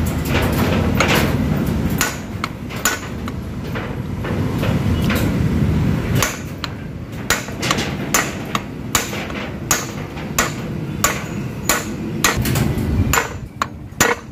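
Repeated sharp hammer strikes, metal on metal, driving a new bearing into a power steering belt tensioner pulley. The blows come irregularly at first and then about one to two a second, over a steady low hum.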